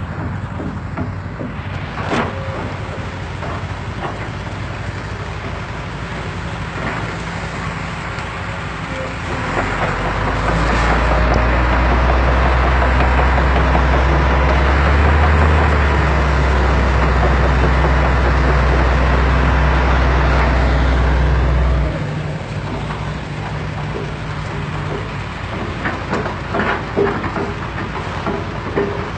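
Sumitomo SH210 excavator's diesel engine running steadily. About ten seconds in it rises to a much louder, deep laboring hum under load, held for about twelve seconds, then drops back to its lower running level. A few short knocks follow near the end.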